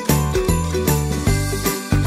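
Upbeat Christmas-style background music with jingling bells over a steady bass beat, about two beats a second.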